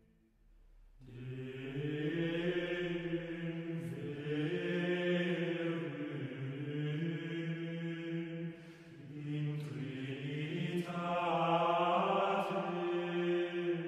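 Chant music of voices holding long, slowly moving sung notes, starting about a second in after a brief silence.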